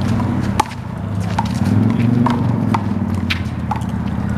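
One-wall handball rally with the big blue ball: about six sharp slaps as the ball is hit by hand and rebounds off the wall and court, irregularly spaced, over a steady low hum.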